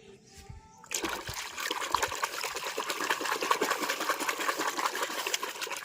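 Water splashing and trickling, starting suddenly about a second in, with many small irregular splashes.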